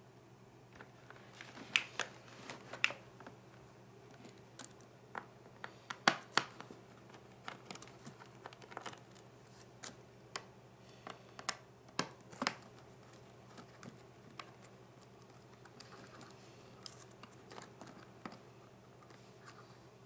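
Irregular sharp clicks and taps of a small screwdriver and fingers working at a Toshiba Satellite laptop's keyboard and plastic case, undoing the screws that hold the keyboard. The clicks thin out after about 13 seconds.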